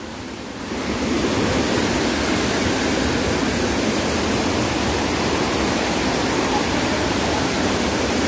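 Water rushing steadily over a small stepped cascade, heard close up. The noise grows louder about a second in, then holds steady.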